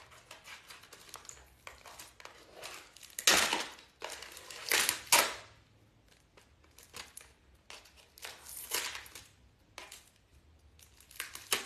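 Crinkling and rustling of the paper and plastic packaging on a necklace card, handled and pulled open in irregular bursts; the loudest bursts come about three and a half and five seconds in.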